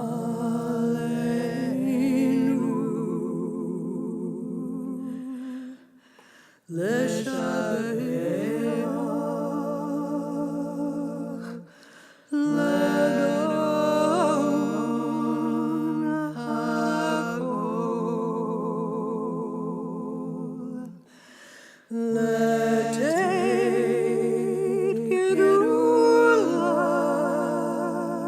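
A single voice humming a wordless melody, in four long held phrases with short pauses for breath between them.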